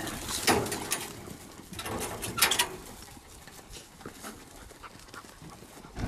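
Hunting dogs let out of a metal crate in the back of a van and jumping to the ground, with a few short sharp noises in the first two and a half seconds, then quieter.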